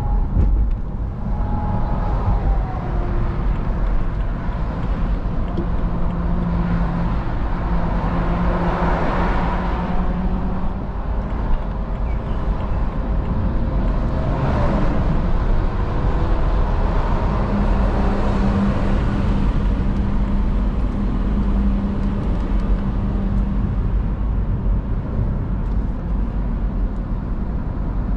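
BMW 330d E93 convertible's 3.0-litre straight-six diesel running at speed with the roof down, heard from the driver's seat. A dense rumble of wind and tyre noise sits under a steady engine tone that fades in and out, swelling twice in the middle.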